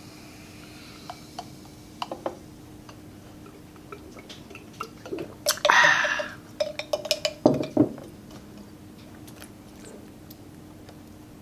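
A canned drink being poured into a glass mason-jar mug, the pour tailing off in the first second. Then scattered clicks and knocks of glass and can being handled and set down, with one louder, short rushing noise about halfway through.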